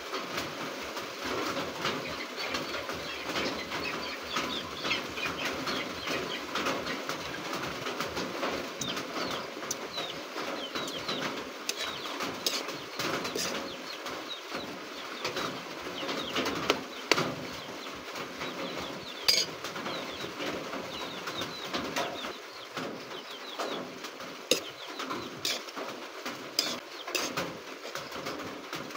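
Mushrooms and beaten egg bubbling and sizzling in a metal wok, with scrapes and sharp clicks of a metal spatula against the pan as it is stirred.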